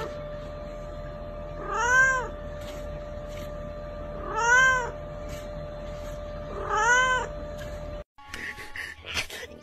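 A cat meowing three times, evenly spaced about two and a half seconds apart. Each meow is short and rises then falls in pitch, and comes as its belly is pressed.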